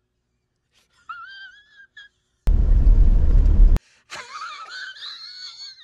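A man's high, wavering laughter in short bursts, broken about two and a half seconds in by a loud, low-heavy burst of noise lasting just over a second, after which the wavering laughter picks up again.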